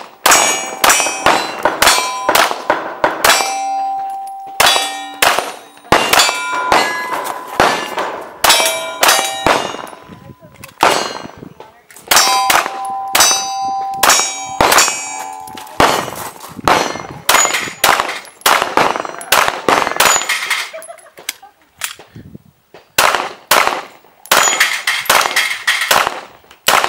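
Pistol fired in quick strings of shots at steel targets, the steel plates ringing with a metallic ding after many of the hits. Short pauses fall between strings.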